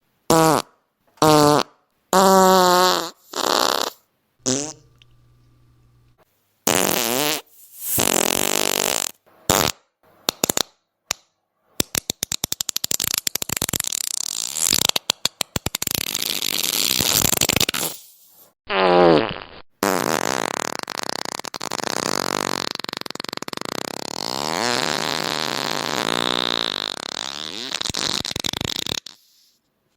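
A string of fart sounds, one after another: short separate farts of a second or so, many with a pitch that slides downward, then a rapid sputtering run of pops from about twelve seconds in, and one long drawn-out fart through most of the last ten seconds.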